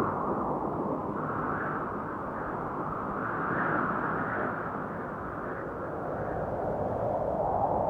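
Gentle wind sound effect: a soft, low rushing that swells and eases every couple of seconds.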